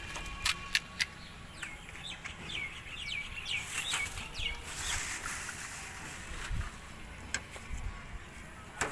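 A few sharp clicks from crisp fuchka puri shells being handled and cracked, with a plastic bag rustling. A bird calls with a quick run of short falling chirps from about two to four and a half seconds in.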